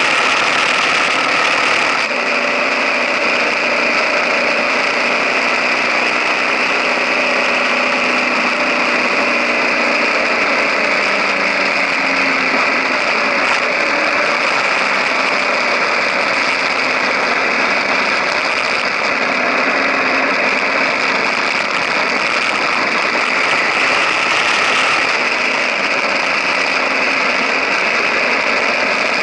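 KTM 1050 Adventure's V-twin engine running steadily under way, picked up close to the engine cases and rear wheel, mixed with continuous tyre and road noise. The engine note shifts only slightly.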